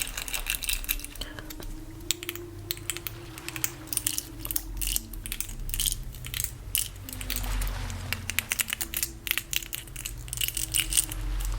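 Soft humming of a slow tune in held notes, under dense crackly clicks and taps from close-up handling sounds.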